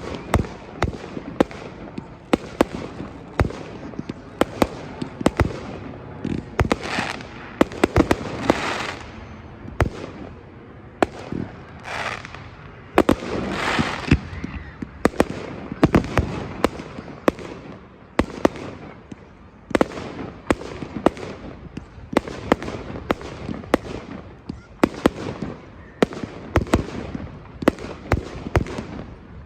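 Fireworks display: a rapid, irregular run of sharp bangs from bursting shells, with longer rushing swells several times.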